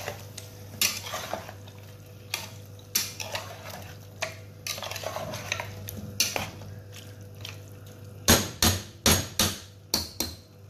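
A slotted metal spatula stirring beef pieces in thick masala paste inside a pressure cooker, with irregular scrapes and clinks against the pot. Near the end, about five sharp metal knocks in quick succession as the spatula strikes the pot.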